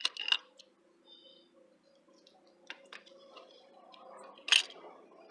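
Small clicks and taps from handling a small hinged wooden box and the clear plastic case inside it. A few come near the start, a couple around three seconds in, and the loudest about four and a half seconds in. A faint steady low hum runs underneath.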